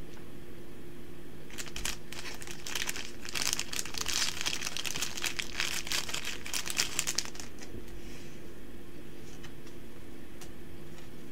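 Plastic crinkling as trading cards are handled, a dense rapid crackle starting about two seconds in and dying away about seven seconds in, with a few light clicks afterwards.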